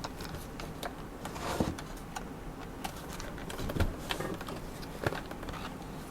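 Scattered faint clicks and knocks, about six, of a laptop being handled while its power adapter cable is plugged in.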